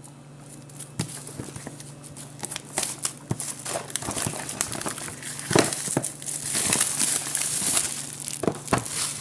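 Packaging of a boxed action camera being handled and opened: irregular crinkling and crackling of plastic and paper, sparse at first and busier from about halfway.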